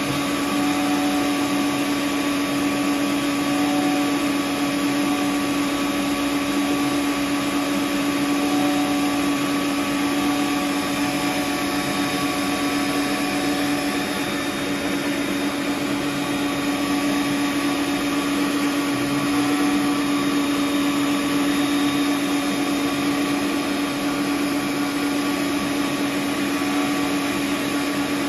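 Electric stand mixer running steadily at high speed, whipping eggs and sugar, with a constant motor hum and whirr.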